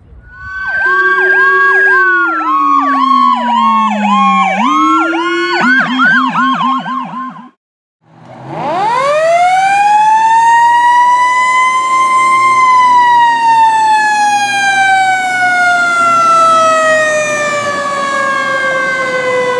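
1996 Mack/Salisbury fire engine's sirens: an electronic yelp pulsing a few times a second over a siren tone that winds down and then back up, cutting off suddenly at about seven and a half seconds. After a moment's silence, a siren winds up to full pitch over about four seconds and then slowly winds down.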